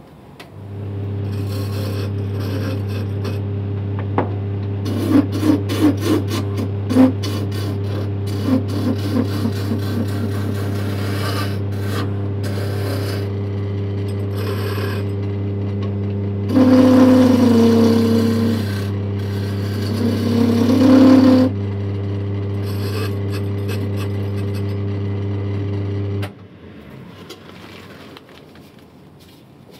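Wood lathe motor starting up and running with a steady hum while a turning tool cuts a wooden scythe-nib blank. The cutting comes in rasping and chattering passes, loudest in a stretch a little past the middle. The motor switches off near the end.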